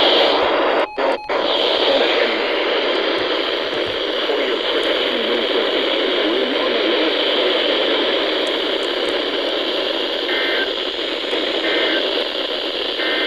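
Steady static hiss from a NOAA Weather Radio receiver between broadcasts, cutting out twice briefly about a second in. Near the end, three faint short bursts of EAS SAME header data tones come through the hiss about a second apart, marking the start of the next alert.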